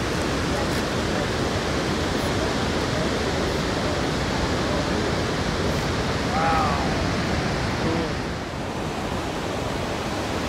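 A large waterfall: a steady, dense rush of falling water. A brief faint voice comes through it about six seconds in.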